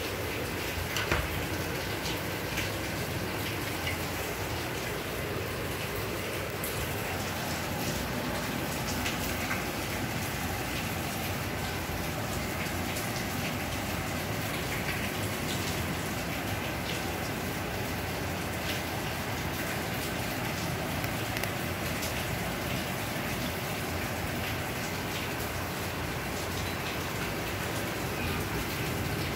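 Steady, even hiss with scattered faint ticks, with a rain-like character.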